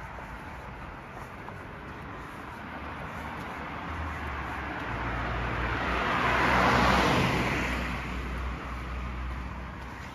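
A car driving past: its tyre and engine noise builds, peaks about seven seconds in and fades away, over a low steady hum.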